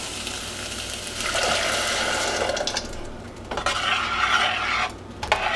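Onion, red jalapeño and garlic sizzling in a stainless steel saucepan, then strawberry puree and water poured in and stirred with a spoon.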